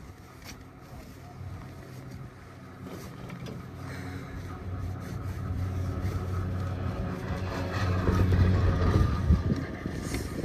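Doppelmayr detachable six-seat chairlift running: a low mechanical hum that grows steadily louder through the second half.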